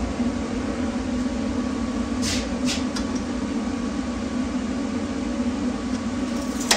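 A steady machine hum, like a running fan or air conditioner, with three short, sharp clicks about two to three seconds in and one more near the end.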